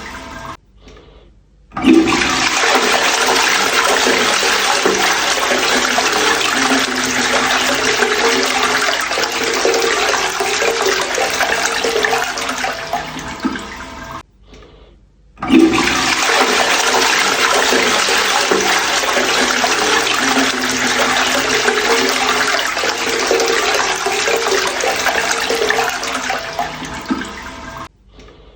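Toilet flushing twice: each flush starts suddenly with a rush of water, runs about twelve seconds, and is cut off by a brief silence before the next.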